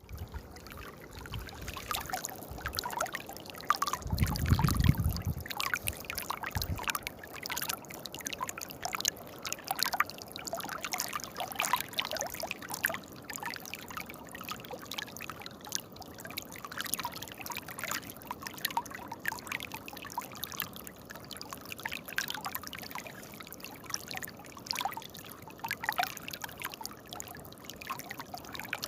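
Small stream of water trickling and splashing steadily over rocks, with a brief low rumble about four seconds in.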